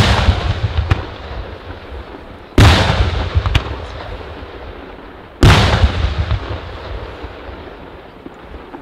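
Aerial firework shells bursting overhead: three loud booms, about two and a half to three seconds apart, each followed by a long rolling echo that slowly dies away, with a few smaller cracks between them.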